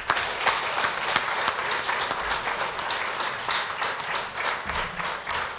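Audience applause in a theatre hall: many hands clapping steadily, starting suddenly as an award winner is announced.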